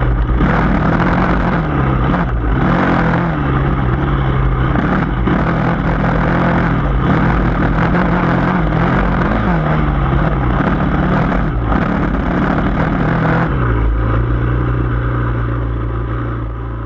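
Yamaha dirt bike engine working up a steep trail climb, its revs rising and falling over and over, with rattling and wind noise on the bike-mounted camera. About 13 seconds in the throttle eases off and the engine settles to a steady, lower note.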